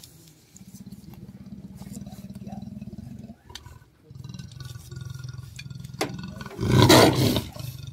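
Caged leopard growling low and rasping, breaking off briefly midway, then a loud snarl near the end.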